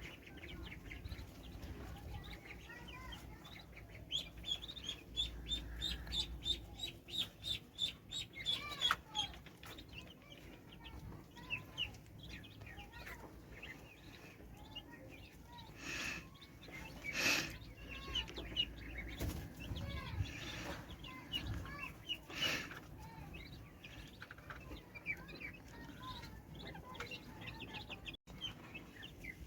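Domestic poultry calling at feeding: a quick run of high peeps a few seconds in, about five a second, then scattered chirps and calls. A few short noisy bursts come later.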